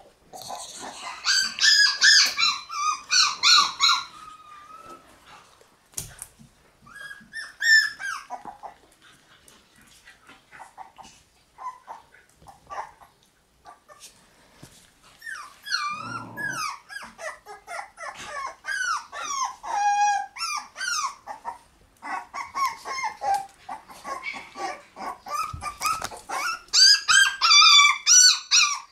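Shiba Inu puppies whining and yelping in many short, high-pitched calls that slide up and down in pitch. They come in bursts, with a quieter stretch of a few faint calls in the middle.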